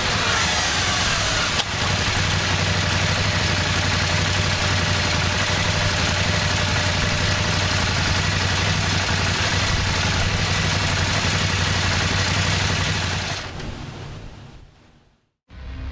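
KTM 790 Adventure R's parallel-twin engine through its stock muffler, running on a dynamometer under brake load, mixed with noise from the dyno drum, drivetrain and spinning tyre. The revs fall in the first second, then it runs steadily with a low hum, and the sound fades out near the end.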